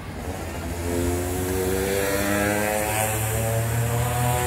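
Aircraft engines spooling up for takeoff: a rising whine over a steady rumble and hiss, cutting off suddenly at the end.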